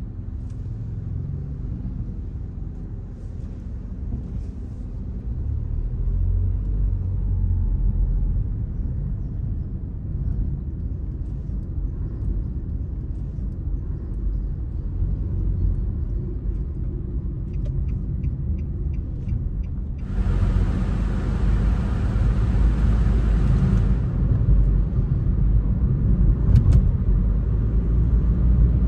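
Car driving along a city street: steady low engine and road rumble from the moving car. Near the end a louder hiss starts and stops abruptly and lasts about four seconds, just after a short run of faint even ticks.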